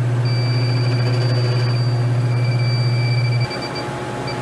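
Electronic refrigerant leak detector sounding a steady high alarm tone while held at a leaking TXV stem, the signal that it is sensing refrigerant there. Under it runs a loud steady low hum that drops out about three and a half seconds in.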